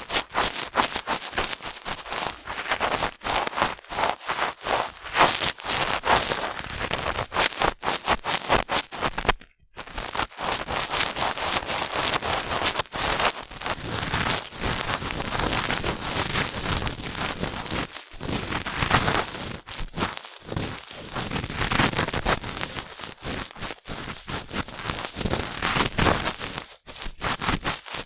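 Cotton swabs rubbing and scratching in the ear of a binaural dummy-head microphone: a dense run of quick, crackly strokes, with a short pause about nine and a half seconds in.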